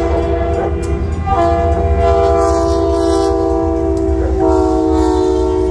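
Freight diesel locomotive blowing its multi-note air horn for a grade crossing as it approaches and passes: a blast ending about a second in, a long blast, and another starting about four and a half seconds in. Under the horn runs a steady low rumble.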